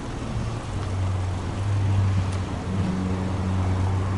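Subaru Legacy Touring Wagon 2.5i's EJ25 flat-four engine idling steadily, its exhaust heard at the tailpipe as an even low hum.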